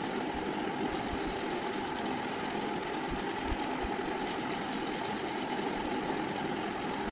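A steady machine hum at an even level, with no distinct events.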